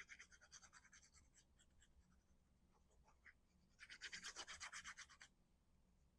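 Faint, rapid scratchy rubbing on paper, about eight to ten strokes a second, in two spells: a short one at the start and a louder one about four seconds in, as a cardstock piece is rubbed or pressed down.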